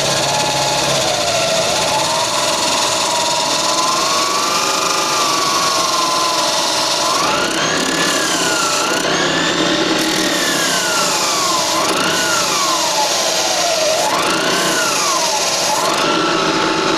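Handheld electric drill running a homemade drum sander, its motor whine rising and falling in pitch as the load changes, over a steady rushing noise.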